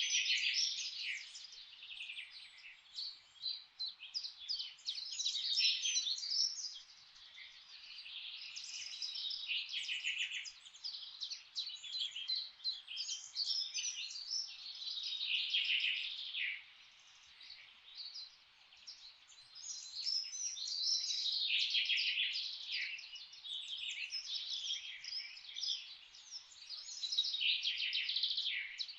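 Many songbirds singing at once: a dense, overlapping chorus of high chirps and twitters that swells and fades every few seconds.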